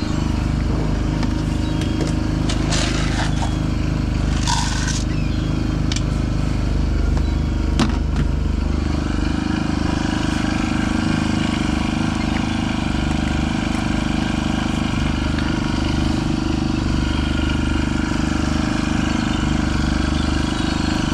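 Boat engine running steadily with an even low throb, with a few sharp knocks and some clatter in the first several seconds. It cuts off suddenly at the end.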